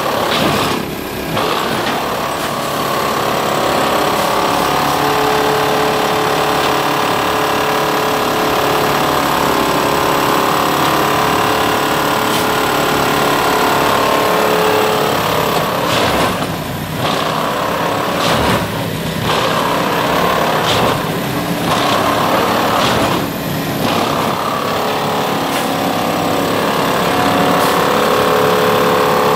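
Heavy Plasser & Theurer railway track maintenance machine working: steady engine running under a loud mechanical working noise. The noise dips briefly four times, about two seconds apart, in the second half.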